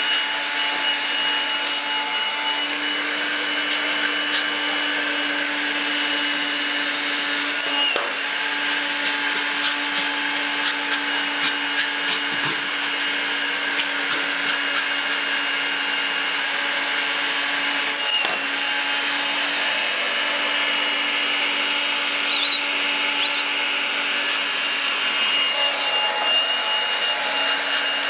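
Vacuum cleaner running steadily: a rushing air noise with a constant high whine, its pitch dipping briefly twice.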